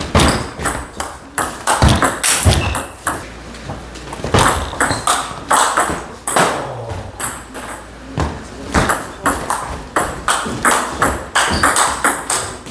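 Table tennis ball struck back and forth in rallies: a quick, irregular run of sharp clicks as it hits the rackets and bounces on the table.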